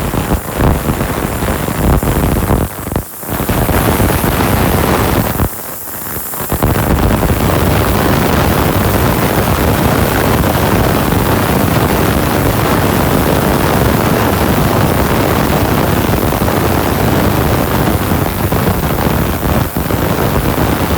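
Heavy-duty industrial ultrasonic cleaner running: a loud, even hiss of cavitation from the tank, which dips briefly twice in the first several seconds.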